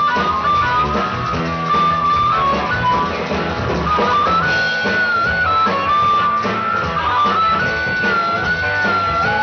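Live band playing an instrumental passage: a harmonica carries the melody in long held notes that step up and down, over electric guitar, bass guitar and drums.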